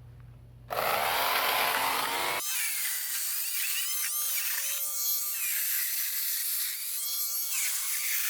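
Electric chainsaw switching on under a second in and cutting into wood, its motor whine rising and dipping as the chain bites.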